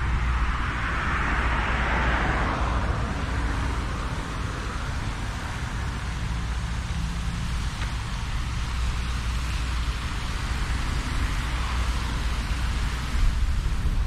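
Road traffic noise, with a car passing and fading during the first few seconds over a steady low rumble.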